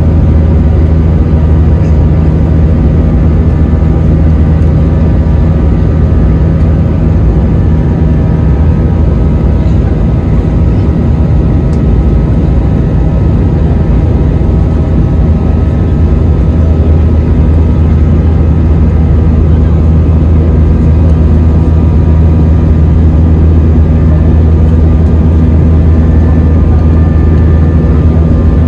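Jet airliner's engines heard from inside the cabin: a loud, steady drone with a deep hum and a few faint steady tones over it.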